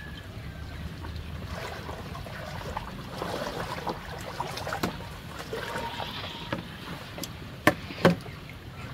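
Shallow floodwater sloshing and splashing as someone wades and moves wood about, with scattered small clicks. Near the end, two sharp knocks about half a second apart, wood on wood, as the bamboo pole is set down on the coop's plank platform.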